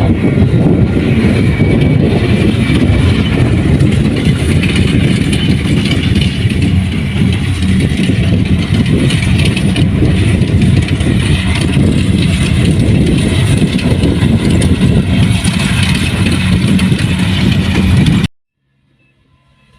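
Kubota rice combine harvester running steadily under load, with a dense engine and machinery drone. The sound cuts off suddenly near the end.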